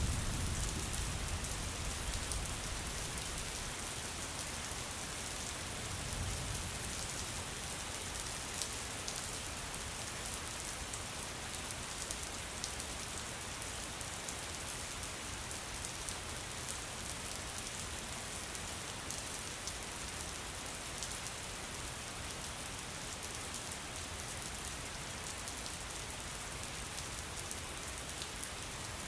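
Steady rain with many sharp drop ticks. A low thunder rumble fades out in the first second, and a fainter rumble swells briefly about six seconds in.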